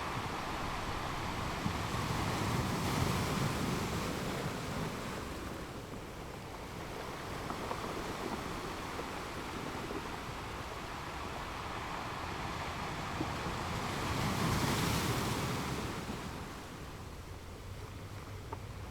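Waves washing and breaking on a rocky shore, a continuous rush of surf that swells to louder crashes about three seconds in and again about fifteen seconds in.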